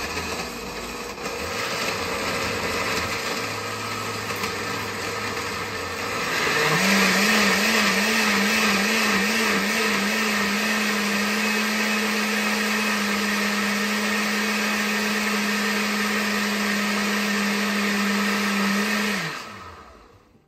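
Countertop blender puréeing a batch of cooked mole sauce. It runs at a lower speed first, then about six seconds in is switched to a higher speed with a higher, steady pitch, and near the end is switched off and spins down.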